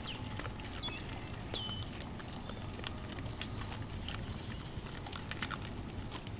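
Young wild boar feeding at a bait pile: scattered clicks and crunches of chewing and rooting, with hooves shuffling on the ground, and a few short high squeaks in the first couple of seconds.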